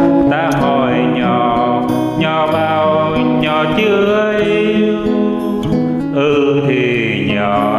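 Music with acoustic guitar and a melody line that slides up and down in pitch.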